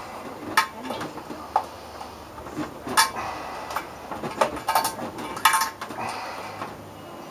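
A metal tool clinking and tapping on metal parts at the back of a CRT television: about seven sharp clinks, several with a short ring.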